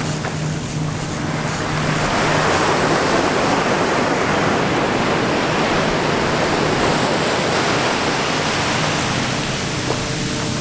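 Ocean surf breaking and washing up a sandy beach: a steady rush of foaming water that swells louder about two seconds in.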